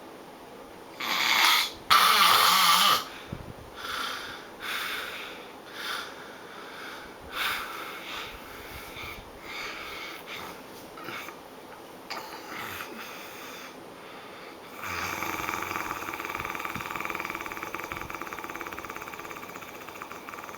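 A person snoring loudly: two big rasping snores near the start, then softer snores about once a second. In the last few seconds this turns into a steadier, fluttering noise.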